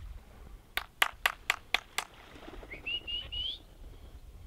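Six sharp clicks in quick succession, about four a second, then a short whistled call that rises in pitch in three steps.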